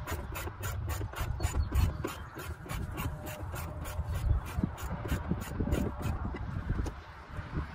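Plastic fender liner and push-pin clips rubbing and scraping as they are worked back into place by hand at a wheel well. A fast, even ticking, about five a second, and a low rumble run underneath.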